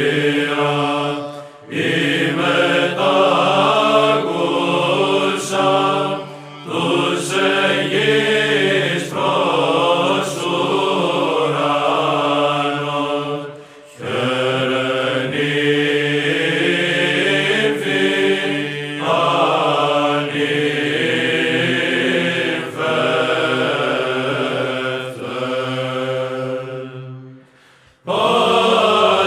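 Orthodox-style church chant: a sung melodic line over a steady low held drone note, in phrases separated by brief pauses, the longest near the end.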